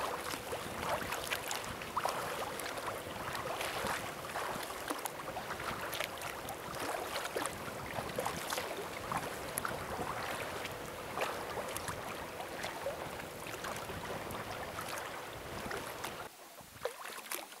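Wind-driven chop splashing and slapping against a kayak's hull as it is paddled, a steady wash of many small splashes. It drops off sharply near the end to quieter water.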